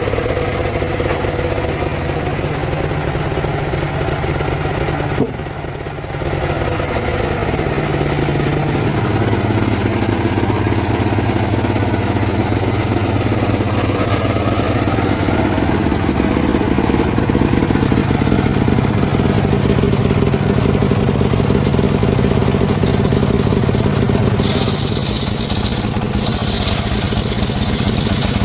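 Engine of a wood-sawing machine running steadily at a medium speed. It dips briefly about five seconds in, then settles at a slightly different pitch. Near the end a high hiss joins in.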